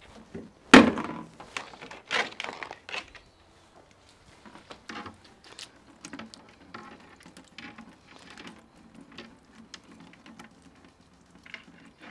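Live Dungeness crab being pulled apart by hand. A loud crack of shell about a second in, a couple more cracks soon after, then soft crackling and clicking as the body is cleaned.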